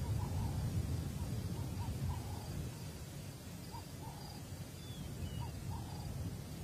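Wild outdoor ambience: short chirping animal calls repeating at irregular intervals, a faint high insect trill and a couple of brief falling whistles, over a low rumble.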